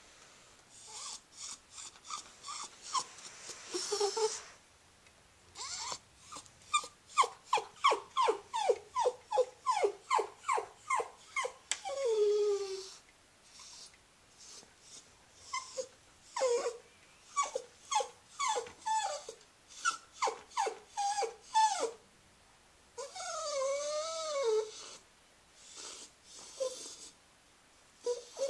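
Cairn Terrier whining with her stuffed toy hedgehog in her mouth: runs of short high whines, each falling in pitch, about two a second, then a longer wavering whine near the end. This is her habitual whining after every meal, which a vet found no cause for.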